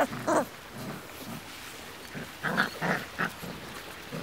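Five-week-old Labrador puppies wrestling, vocalising in a quick run of four or five short play-growls and grunts about two and a half seconds in.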